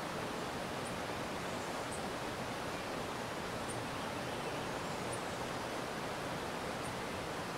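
Steady rush of fast-flowing water in a mountain stream, with faint short high chirps every second or two.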